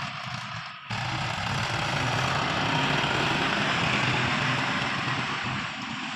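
A heavy vehicle's engine running steadily. The sound dips and cuts back in abruptly just under a second in.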